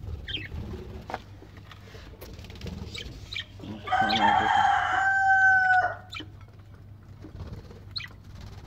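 A rooster crowing once, a single call of about two seconds starting about four seconds in.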